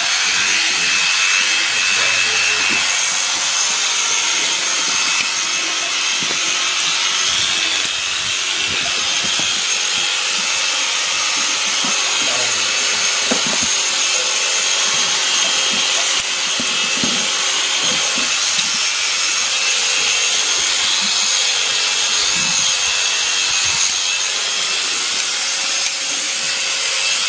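Shears cutting through a sheep's fleece: a steady, noisy cutting sound with a constant high whine underneath and a few faint knocks.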